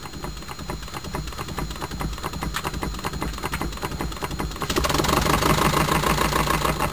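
Model twin-cylinder overcrank engine running on compressed air, a fast, even clatter of exhaust beats that speeds up and grows louder as more air is fed to it, with a marked step up about two-thirds of the way through as it reaches the speed where its Watt governor starts to act.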